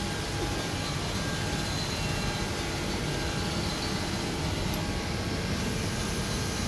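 Steady print-shop machinery hum and rush, continuous and even, with no distinct clicks or knocks standing out.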